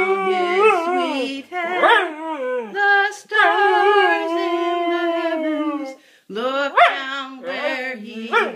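Dog howling in long, wavering notes, 'singing' along to a Christmas carol, with one note held for a couple of seconds in the middle and a few quick rising yelps near the end.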